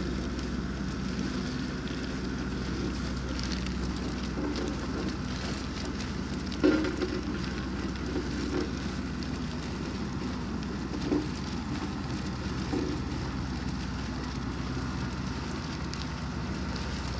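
A steady low engine-like hum under an even hiss, like wind on the microphone, with a few short knocks, the loudest about a third of the way in.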